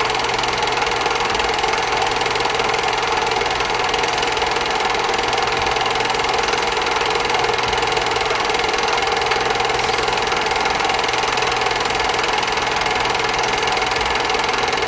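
Film projector running, with a steady fast mechanical clatter over a constant hum.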